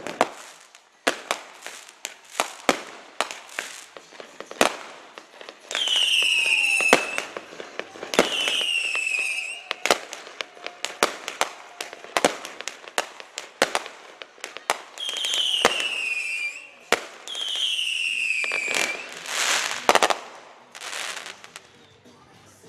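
Fireworks display: a run of sharp bangs and crackles from bursting aerial shells. Four whistling fireworks come in two pairs, one pair about a quarter of the way in and one about two-thirds in. Each is a falling whistle of about a second.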